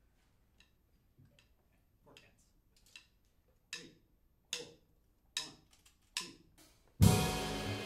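A slow count-in of sharp clicks, about one every 0.8 seconds and getting louder, then the full jazz band (drums, bass, keyboard, guitar and saxophones) comes in together about seven seconds in.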